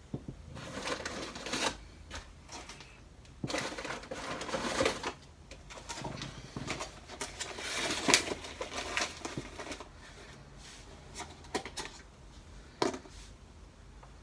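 Shipping packaging being opened and handled: several bouts of rustling and scraping over the first nine seconds or so, then a few scattered clicks and knocks.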